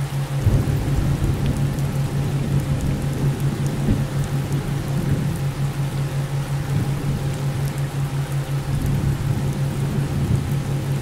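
Subliminal audio track: white noise with a steady 528 Hz tone and a low hum pulsing several times a second (theta-wave beats). About half a second in, a rumbling noise like rain and distant thunder joins.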